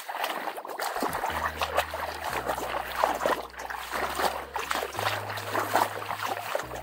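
Water trickling and splashing, as of ground and a stream swollen by heavy rain, with many small splashes close by. About a second in, low steady tones come in underneath and shift pitch every second or so.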